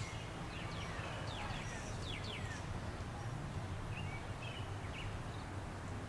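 Birds calling: a run of quick downward-sliding chirps in the first couple of seconds, then a few short chirps about four to five seconds in, over a steady low background rumble.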